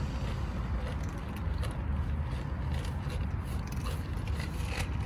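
Stray cats crunching dry food, heard as scattered faint clicks over a steady low rumble.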